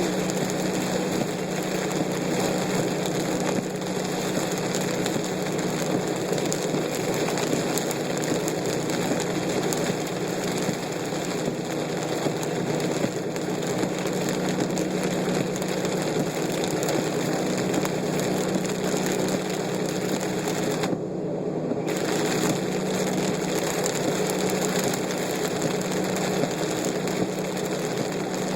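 Heavy rain pattering on a moving car, with the engine running, heard from inside the cabin: a steady, dense hiss over a low hum, with the hiss briefly dropping out about three quarters of the way through.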